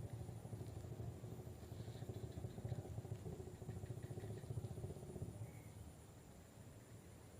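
A distant engine running with a low rumble, fading away about five seconds in.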